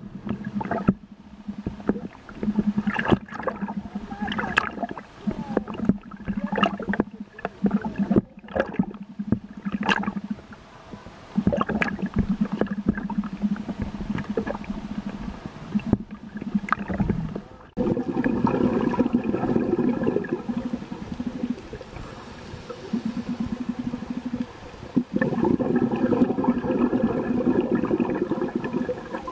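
Underwater sound through a camera housing: a steady low hum with many sharp knocks and clicks through the first half, then, from about two-thirds in, a scuba diver's exhaled bubbles gurgling in long bursts with pauses between breaths.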